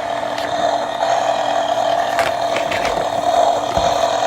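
Toy motorcycle engine's electronic engine sound effect playing through its small speaker, a steady idle-like running noise, with a few sharp clicks.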